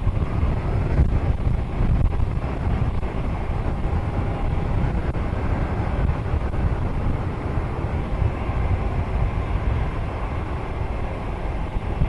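Wind buffeting the microphone: a heavy, gusting low rumble.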